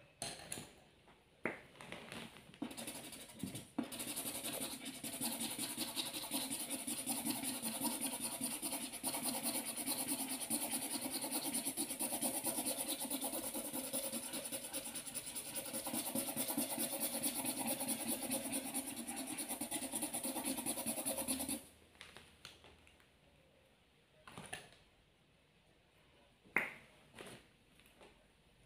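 Felt-tip marker scribbling rapidly back and forth on paper, colouring in an area: a continuous scratchy rasp that starts about four seconds in and stops suddenly about seven seconds before the end. A few scattered clicks and taps come before and after it.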